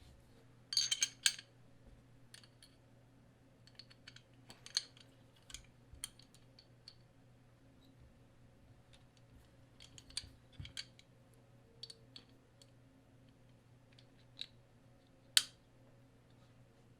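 Scattered small clicks and taps of a pistol and hardware being handled, with a short cluster about a second in and one sharp click near the end. A faint steady hum runs underneath.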